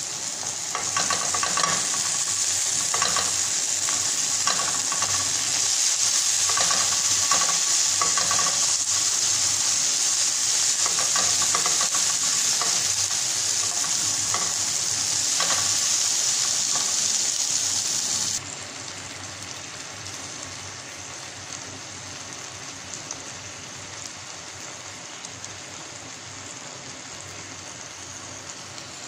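Chopped tomato, onion and carrot frying in a nonstick pan: a steady high sizzle, with a slotted spatula scraping and stirring through the pan over the first half. About eighteen seconds in, the sizzle drops suddenly to a quieter level and carries on.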